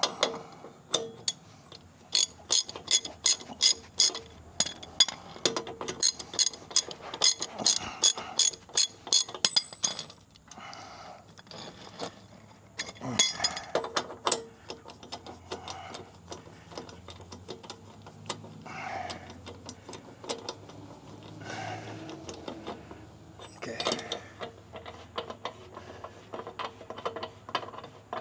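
Hand ratchet wrench clicking as nuts are run down, in quick runs of about four clicks a second for the first several seconds, then slower, scattered clicks and clinks of metal.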